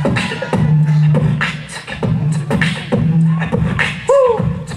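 Live human beatbox: vocal kick drums, snares and hi-hats in a steady rhythm over a hummed bass line, with a short rising-and-falling vocal swoop about four seconds in.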